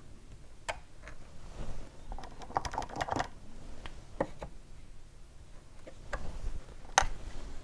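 Small scattered clicks and taps of fingers and a cocktail stick handling a thin wooden moulding strip against the wooden hull of a model ship, with a busier run of clicks about three seconds in and one sharp click about seven seconds in.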